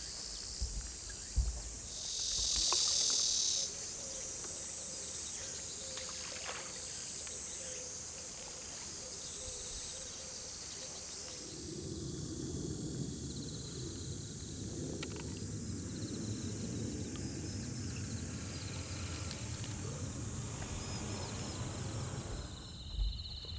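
Crickets and other insects chirping in a steady high-pitched chorus, with a brief louder buzz about three seconds in. From about halfway a low steady rumble joins the insect song.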